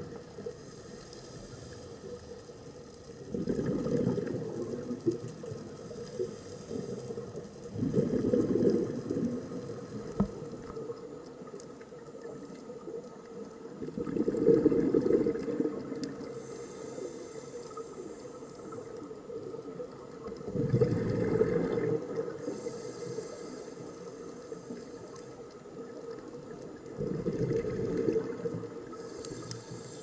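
A scuba diver breathing through a regulator underwater: a hiss on each inhale, then a burst of bubbling on each exhale, about five breaths, one every five to six seconds.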